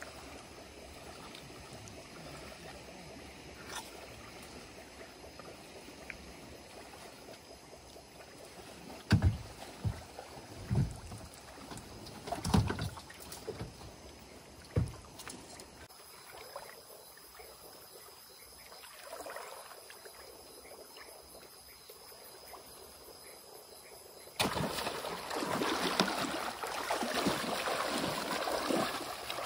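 Hollow knocks against a small aluminium boat hull, four of them a second or two apart, as the boat is poled through flooded brush, over a steady high chorus of night insects. Near the end a sudden, louder rush of water and brush noise sets in while a caiman is held on a pole at the water's edge.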